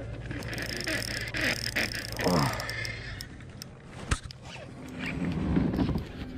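Shimano Stradic spinning reel being cranked hard against a large fish, its gears whirring and clicking under load, with a sharp knock about four seconds in.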